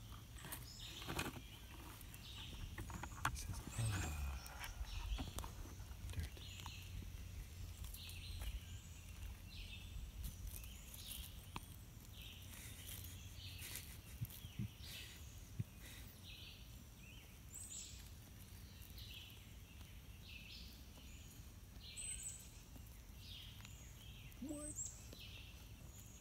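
Faint outdoor ambience with a bird chirping over and over, short high calls about once a second. A low rumble sits on the microphone in the first several seconds.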